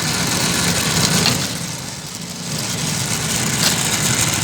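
A motor running steadily, with a continuous low hum under a busy hiss, dipping briefly about halfway through.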